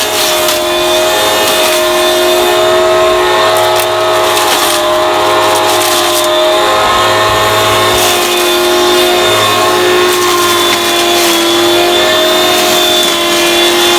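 Garden Groom Midi corded electric hedge trimmer running steadily while it cuts, its motor and blade making a whine that sounds almost like a vacuum cleaner and wavers slightly in pitch.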